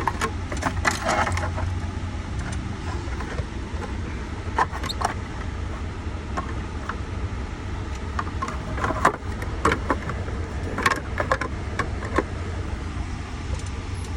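Scattered clicks and small plastic-and-metal rattles of parts and tools being handled while a truck's steering column is put back together, over a steady low hum.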